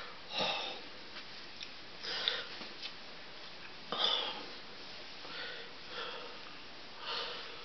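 A person sniffling and sobbing quietly, a handful of short breaths a second or two apart: the weeping of a banshee character, voiced offstage.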